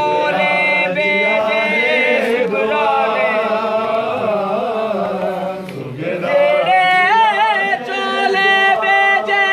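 Voices chanting a Sindhi noha, a mourning lament, with no instruments heard. The chant dips briefly about five and a half seconds in, then picks up again.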